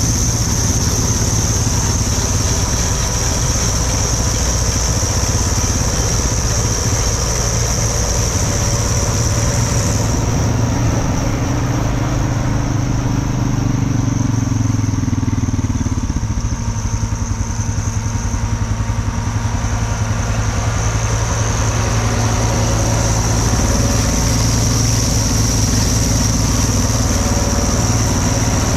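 Farm tractor engine running steadily at high throttle while driving a manure spreader through the PTO.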